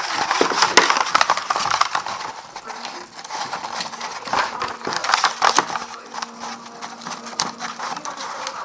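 A sheet of paper rustling and crackling as it is folded and worked by hand, with many sharp crinkles and clicks, busiest at the start and again midway.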